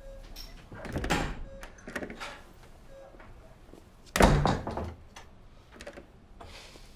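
Door sounds: a sharp knock and rattle about a second in, then a heavy thud about four seconds in, the loudest, as a door is shut.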